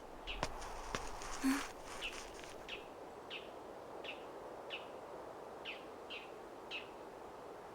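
A bird chirping: short, falling chirps repeated about every two-thirds of a second, over a faint outdoor ambience. A few clicks and a brief rustle come in the first couple of seconds.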